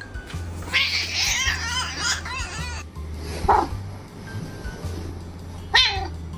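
A cat making a run of wavering, warbling calls, then a short call and a single meow that slides down in pitch near the end, over background music.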